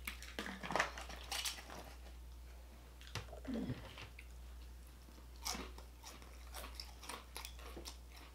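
Close-up crunching and chewing of crispy breaded fried onion rings, with irregular crisp crunches throughout and a short vocal 'mm' about three and a half seconds in.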